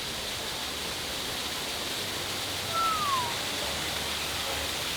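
Steady rush of falling water from a waterfall. About three seconds in, a single short whistle-like note glides downward.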